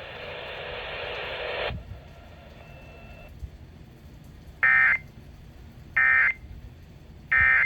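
Three short bursts of Emergency Alert System SAME data tones, each under half a second and about a second and a third apart: the end-of-message signal that closes the severe thunderstorm warning. A hiss runs for the first couple of seconds before them.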